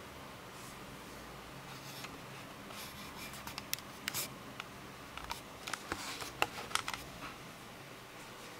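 Faint steady hiss with a scatter of small, sharp clicks and ticks through the middle few seconds.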